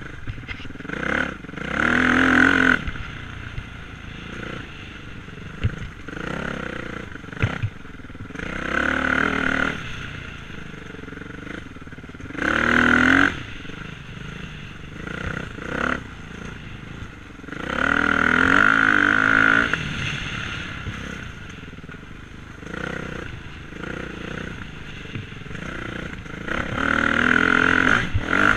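Dirt bike engine heard from the rider's helmet, revving up in about five loud throttle bursts and dropping back to lower revs between them as it rides a sandy trail. A few sharp knocks come through in the middle.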